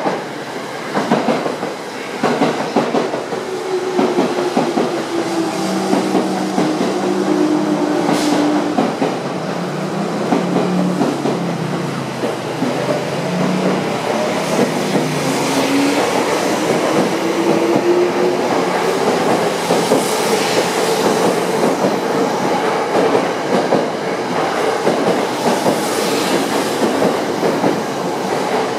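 Tokyo Metro 05 series electric train pulling out and gathering speed. Its traction motors whine in steady tones, then in tones that rise as it accelerates, over the rumble and clack of wheels on the rails.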